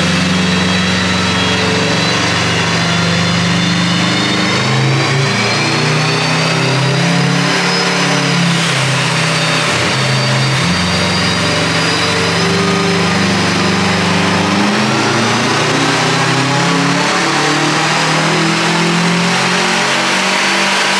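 Subaru WRX STI rally car's turbocharged flat-four engine running under load on a chassis dyno, its note moving up and down in steps, with a high whine that rises and falls.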